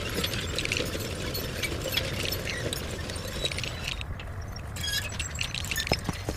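Rapid small clicks and clatter, typical of LEGO plastic bricks being handled and snapped together, over a steady low rumble, with a brief pause in the clicking about four seconds in.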